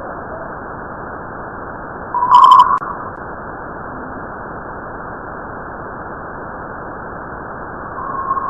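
Space sound of the kind made by converting spacecraft radio or plasma-wave recordings into audio: a steady static hiss, with a short loud tone about two seconds in and another steady tone starting near the end.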